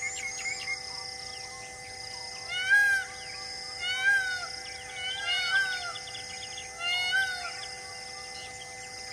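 A wild animal gives a series of short arched, wavering calls: four bouts, one of them a double call, heard over high bird chirps and a steady drone-like music bed.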